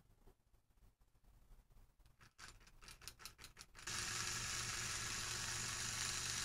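A few light clicks of handling, then about four seconds in a small electric motor switches on abruptly and runs steadily with a hum and a hiss, spinning a belt-driven eccentric rotor weighted with a screw.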